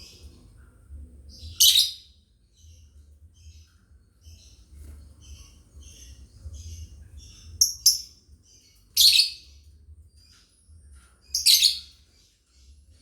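Lovebirds chirping: soft, quick twittering throughout, broken by loud, sharp calls about two seconds in, a quick double near eight seconds, one at nine and one near eleven and a half.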